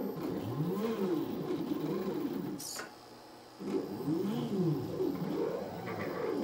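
Stepper motors of a 3D-printed robot arm whining in rising and falling sweeps as the joints speed up and slow down. There is a brief high buzz and then a pause of under a second near the middle, before the sweeps start again.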